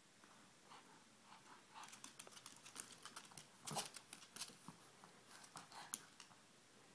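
Faint scattered clicks and rustles of two Boston Terriers tussling over a cloth toy, their paws scuffing on the floor and rug, mostly between about two and six seconds in. The loudest rustle comes just before the middle.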